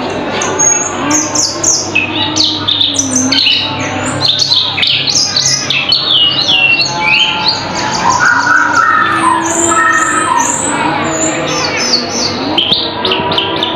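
Cucak keling songbird singing a loud, varied song of quick sharp chirps, squawky notes and short sweeping whistles, with a run of lower whistled phrases around the middle.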